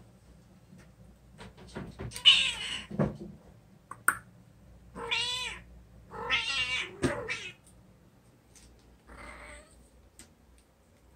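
Calico cat meowing several times: a harsh, loud cry about two seconds in, then drawn-out meows around the middle and a faint one near the end, with a few light knocks between them.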